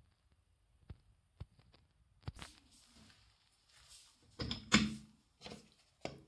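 A few light clicks, then a series of knocks and rubbing clunks, loudest between four and five seconds in, as a hand presses and works the chrome pop-up drain stopper of a bathtub.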